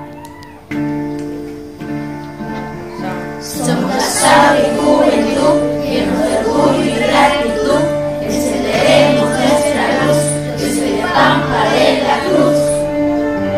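A school hymn sung by a group of primary-school children as a virtual choir, their voices recorded separately at home and mixed together over an instrumental backing. The backing plays alone at first, and the children's voices come in about three and a half seconds in.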